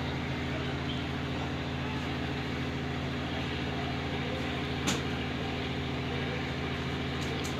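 A steady low motor-like hum with one sharp knock about five seconds in.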